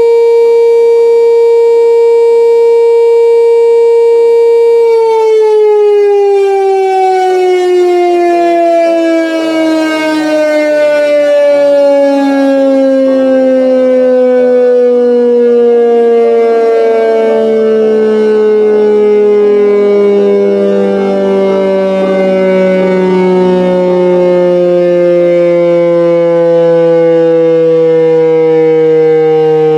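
Electric motor siren sounding loudly. It holds one steady tone, then about five seconds in it begins winding down, its pitch falling slowly and continuously as the rotor coasts to a stop.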